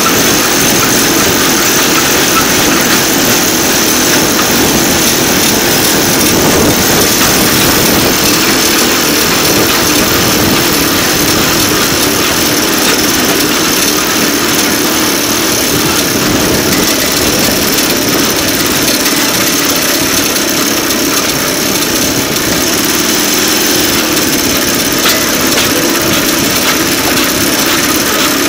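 DL2 motor draisine running steadily along the rails, its engine noise constant and loud with no change in speed.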